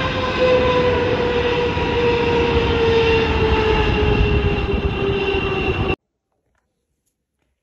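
Jet airliner's engines at high thrust: a loud rushing blast with a steady whine that sinks slightly in pitch. It cuts off suddenly about six seconds in.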